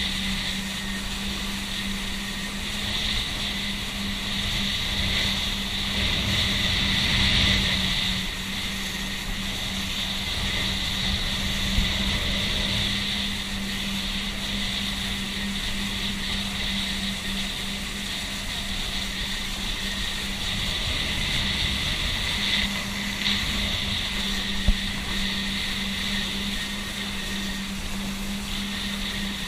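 Motorboat engine running at a steady pitch while under way, with water rushing past the hull. It swells slightly several seconds in, and two single sharp knocks sound, about halfway through and again later.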